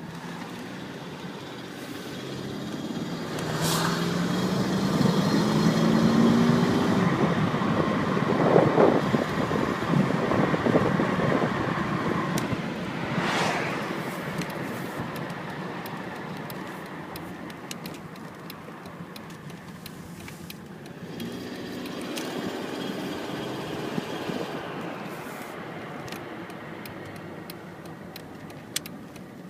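Car engine pulling under load twice, its pitch rising each time, with a rattle that comes only under load and cannot be made at idle.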